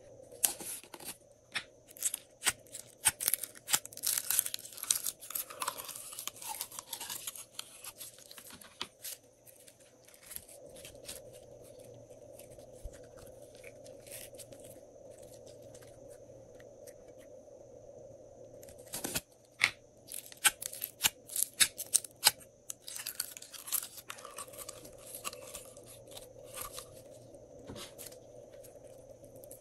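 Glitter slime being handled by hand: runs of sticky clicking and crackling as it is pressed, pulled and squeezed. There is a quieter stretch of about ten seconds in the middle, over a faint steady background hum.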